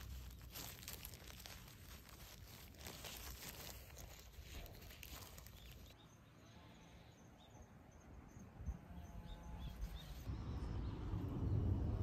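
Plastic gloves crinkling and soil rustling as hands press earth around a cabbage seedling. This gives way to quieter outdoor air with faint high chirps repeating, then a low rumble that grows louder near the end.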